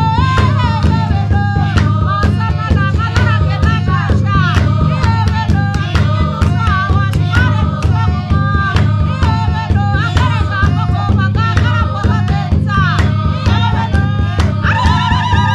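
Music with a steady, fast drum beat under a shifting melody line, sung or played; near the end a new held note comes in.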